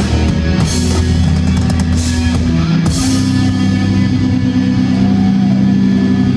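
Death metal band playing live through a loud PA: heavily distorted electric guitars and bass with drum kit and cymbal crashes, then from about halfway the band holds a long ringing chord.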